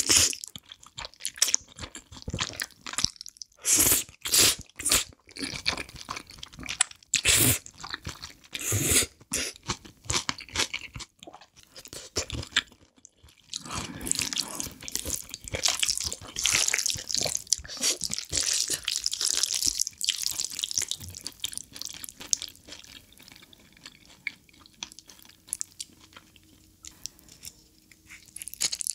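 Close-miked eating of spicy black-bean-sauce noodles: irregular slurps, bites and chewing with crunchy, wet mouth sounds, denser for several seconds around the middle.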